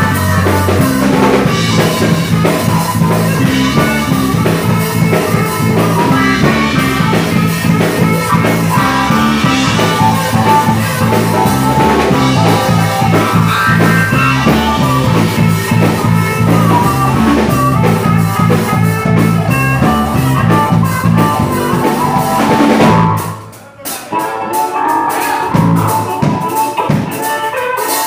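Live blues band playing: a stepping bass line, drums, keyboard and guitar, with a harmonica played into a handheld microphone. About 23 seconds in the band cuts out for a short break of a few sharp hits, then comes back in.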